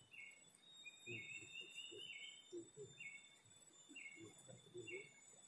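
A bird calling a short high note over and over, about once a second, with one longer drawn-out call about a second in.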